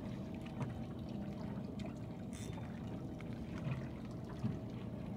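Water lapping and trickling against a boat's hull, over a low steady hum, with small scattered knocks and one brief hiss about two seconds in.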